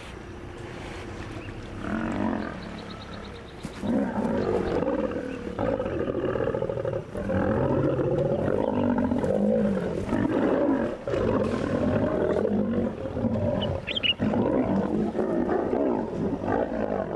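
Lions roaring in an attack on a crocodile, several calls overlapping. The calls grow loud about four seconds in and stay loud.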